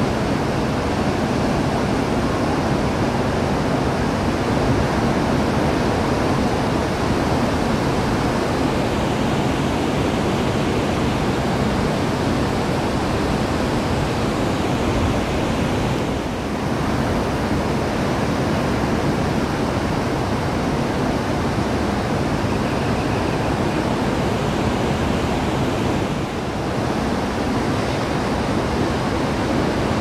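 Ocean surf breaking in heavy swell, a steady, even rush of noise that dips briefly about halfway through and again near the end.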